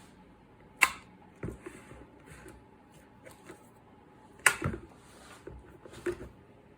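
A few sharp clicks and light knocks at uneven intervals, the two loudest about a second in and about four and a half seconds in.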